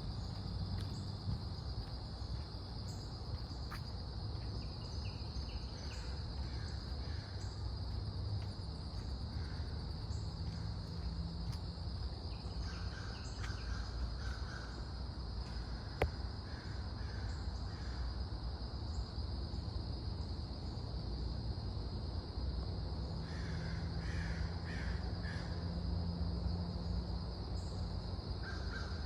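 Crows cawing in a few bouts of repeated calls, over a steady high-pitched drone of insects.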